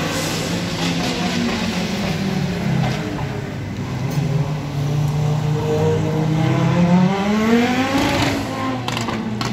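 Audi S1 Quattro rally car's turbocharged five-cylinder engine running at a steady pitch, then revving up steeply about seven seconds in as the car accelerates.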